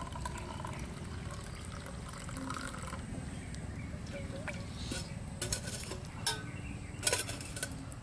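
Hot tea poured from a pot into a stainless steel mug, the liquid trickling in as the mug fills during the first few seconds. A few sharp clicks follow near the end.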